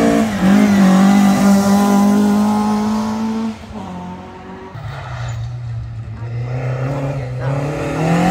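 Rally car engine held at high revs, a steady note that drops about three and a half seconds in as the car pulls away and fades. Near the end a second rally car's engine rises as it approaches.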